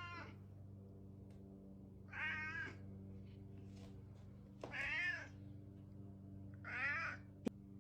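House cat meowing repeatedly, three drawn-out meows about two seconds apart, demanding food from an automatic feeder that has not yet dispensed. A sharp click comes near the end, over a steady low hum.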